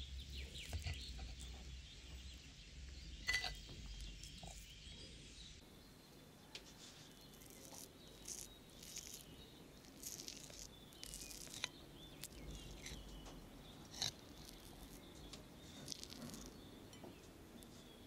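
A metal spoon clinking and scraping against a ceramic plate as it cuts into a soft cake: a few light clinks, the sharpest a few seconds in and again late on, over faint background noise.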